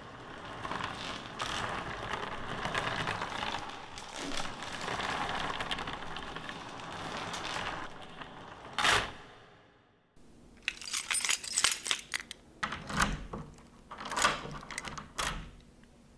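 A bunch of metal keys jangling and clinking in a run of short, sharp shakes in the second half, after a longer stretch of softer continuous rustling.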